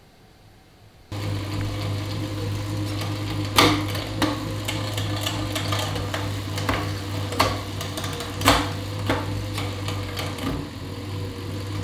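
Time-trial bicycle spinning on an indoor trainer, a steady whir that starts about a second in, with several sharp clicks and knocks over it.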